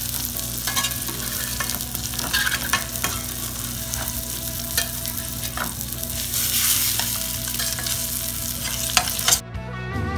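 Red snapper fillets sizzling as they pan-sear in hot oil in a stainless steel pan, with metal spatulas scraping and clicking against the pan as the fillets are turned over. The sizzle cuts off suddenly near the end.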